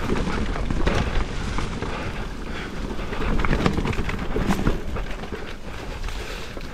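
Cannondale Moterra LT2 mountain bike riding down a rough, wet trail: a steady rumble of wind buffeting the microphone, tyre noise on the dirt, and frequent short rattling knocks from the bike over bumps.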